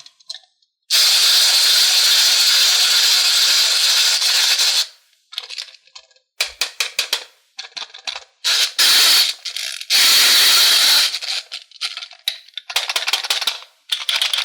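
Slime being worked by hand: a long stretch of even, hiss-like squishing, then rapid crackling and popping clicks as air pockets burst, followed by shorter squishy stretches.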